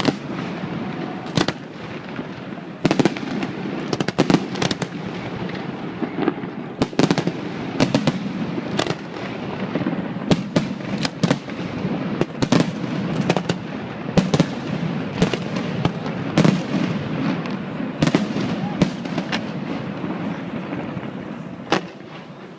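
Fireworks display: many sharp bangs and cracks in quick, irregular succession over a continuous rumble of bursts, thinning out near the end.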